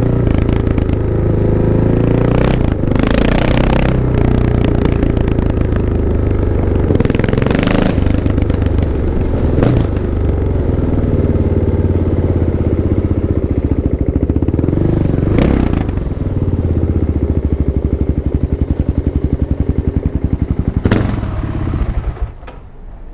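Kawasaki KLX650's single-cylinder four-stroke engine running, its pitch rising and falling several times as it is revved, then getting quieter near the end.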